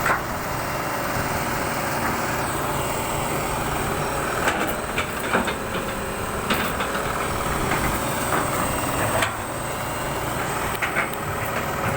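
Heavy excavator diesel engine running steadily, with a few sharp metallic knocks from the machinery.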